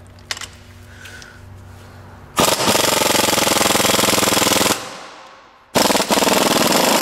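3/8-inch impact wrench hammering in two rattling bursts, the first about two and a half seconds long, the second starting near the end, driving a 12 mm exhaust manifold bolt through an extension wrench. Used from that side the extension turns the bolt the opposite way, so the impact is tightening the bolt rather than loosening it.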